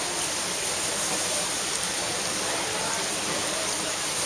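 Steady rush of running and bubbling water from aerated live-seafood tanks.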